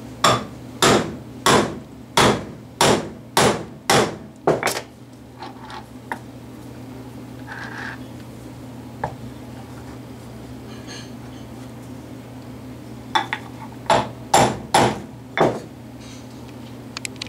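Hammer blows on a wooden block, tapping the stepped pulley housing of a drill-press pull gear speed reducer together: a run of about seven sharp knocks a little over half a second apart, a pause, then about five more near the end.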